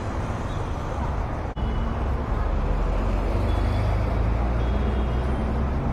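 Kawasaki ZX-10R's inline-four engine running as the bike pulls away, with road and wind noise. The sound cuts out for an instant about a second and a half in, then the engine comes in louder and steadier.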